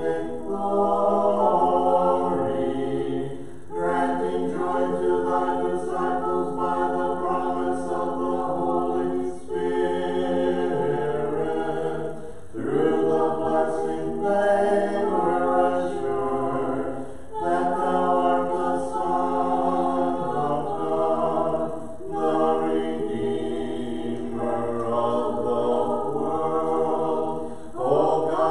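Voices singing an Orthodox liturgical hymn a cappella in several-part harmony, in phrases a few seconds long.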